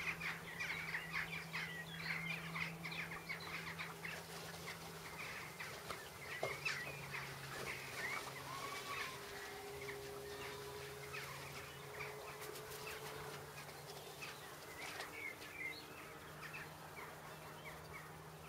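Birds chirping and singing, many overlapping calls at first, thinning out after a few seconds.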